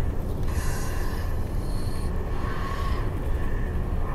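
Steady low rumble of a passenger vehicle, heard from inside the passenger cabin.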